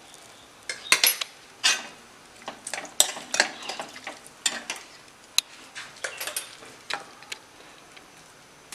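Stainless steel ladle scraping and clinking against a metal kadai as boiled carrots and beans are stirred, in irregular knocks starting about a second in and stopping near the end.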